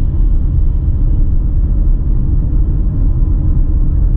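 Steady low rumble of a car on the move, heard from inside the car: road and engine noise with no change in pitch or speed.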